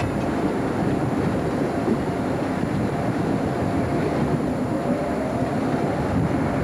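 Steady running noise of a slow-moving diesel-hauled train, a Class 47 locomotive and its coaches, heard from an open coach window, with a faint rising whine near the end.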